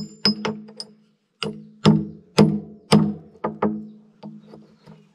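Hammer blows driving a steel locking pin into an excavator bucket tooth: about a dozen sharp strikes in an irregular rhythm, each one ringing briefly, with a short pause about a second in. The pin is stiff and slow to go in.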